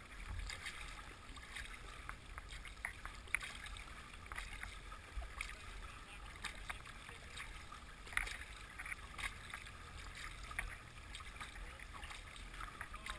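Water gurgling and splashing along the hull of a small paddled boat, with scattered small splashes and drips under a low, steady rumble.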